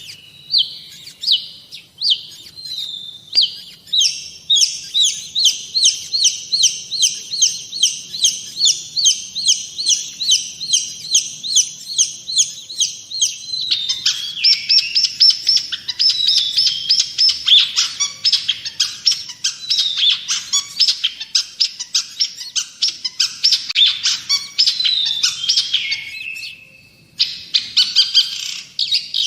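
Long-tailed shrike (cendet) singing energetically. It gives a long run of rapid, evenly repeated high notes, and about halfway through switches to a more varied, scratchy chatter. There is a brief pause near the end before it resumes.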